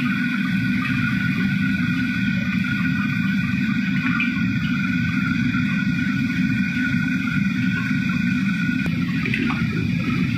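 Steady roar of a commercial wok range's gas burner and kitchen exhaust, with a few light clinks of a metal ladle against the wok.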